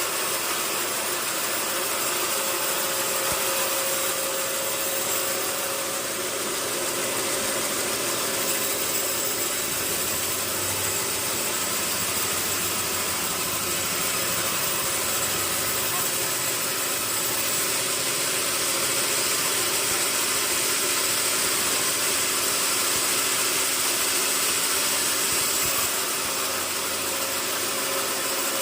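Sawmill machinery running steadily with an engine-like drone and a constant hum, without clear changes.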